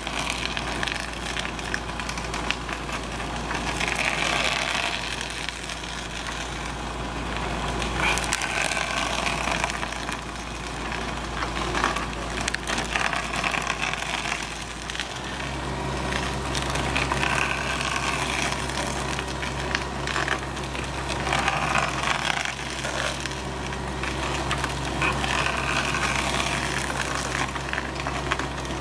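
Hydraulic vertical-spindle stump grinder (Rotor attachment) chewing into a tree stump: wood crunching and splintering in surges every few seconds over the steady hum of the carrier machine's engine and hydraulics. The engine note changes about halfway through.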